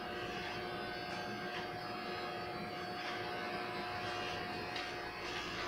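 Cordless electric pet hair clipper running with a steady motor hum as it trims a dog's face fur, with a few faint clicks.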